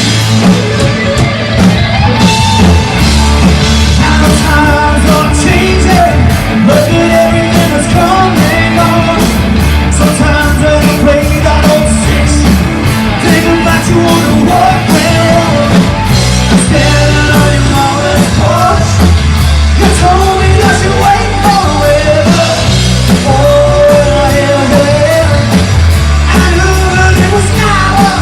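A live rock band playing: loud distorted guitars, bass and a steady drum beat, with a lead vocalist singing.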